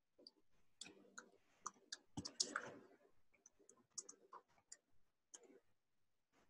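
Faint, irregular computer keyboard keystrokes as a line of code is typed, with a quick run of keys about two seconds in.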